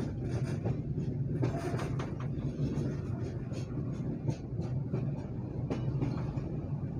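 Passenger train running at speed, heard from an open carriage doorway: a steady low rumble of wheels on the track, with scattered short clicks.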